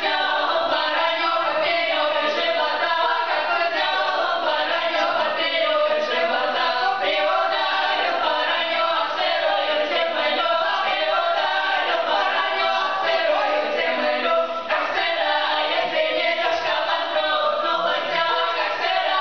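A women's vocal ensemble of five voices singing an old Russian polyphonic folk song a cappella, the separate parts weaving in and out of one another.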